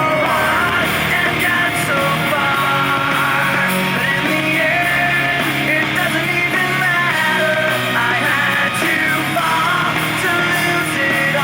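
Rock music with sung and shouted vocals over guitars and drums, played loudly and steadily through an Ultimate Ears Roll 2 portable Bluetooth speaker.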